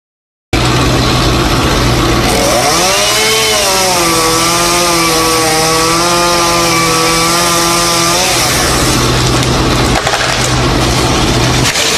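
Chainsaw cutting through a tree branch: its pitch drops as the chain bites into the wood, holds steady for several seconds, then the saw lets off. A truck engine runs steadily underneath, and the sound cuts in abruptly about half a second in.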